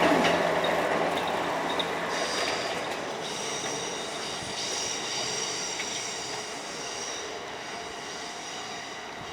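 Kintetsu 15200-series electric train running away over the rails, its rail noise fading steadily. A thin high squeal joins about two seconds in and drops out near the end.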